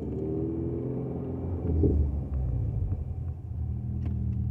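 A 2020 Subaru Crosstrek's flat-four, heard through a Nameless Executive axleback muffler from inside the cabin while driving. The engine note is light and rumbling, swells briefly about two seconds in, then settles into a low steady hum.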